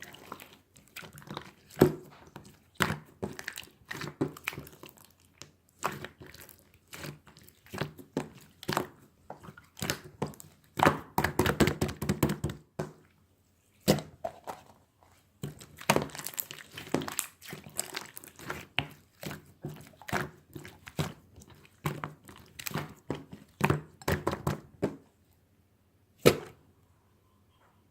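Irregular taps and thunks with crinkling, as objects are handled close by, in uneven clusters with short pauses.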